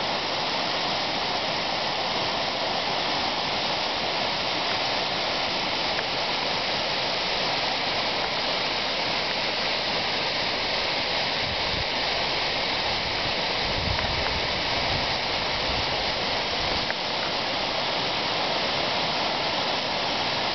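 Myrtle Falls, a small mountain waterfall on Edith Creek, cascading down a rock face: a steady, unbroken rush of falling water.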